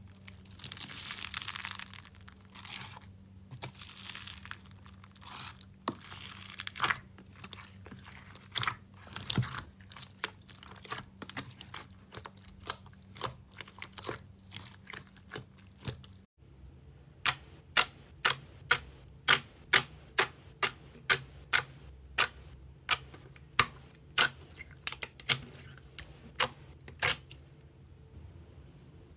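Slime being handled and squished. First comes a crinkly crackle with scattered sticky clicks; then, after a cut about halfway, a steady run of sharp pops about two a second.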